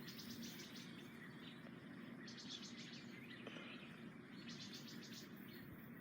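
Faint high-pitched chirping in short rapid trills that come back about every two seconds, with no firecracker bang.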